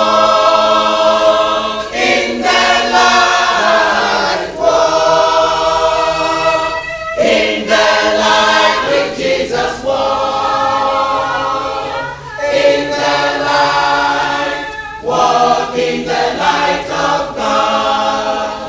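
A group of men and women singing a gospel song together, in phrases of a few seconds with short breaks between them.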